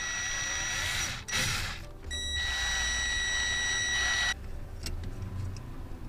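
Small cordless drill running in two runs with a high, steady whine as a 1/8-inch bit drills a screw hole through the car's clutch pedal. The second run cuts off about four seconds in, followed by a few faint clicks.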